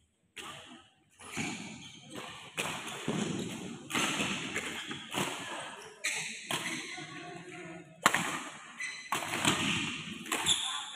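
Badminton play on an indoor court: a string of irregular sharp hits and thuds, rackets striking the shuttlecock and players' shoes landing on the court mat, the loudest about eight seconds in.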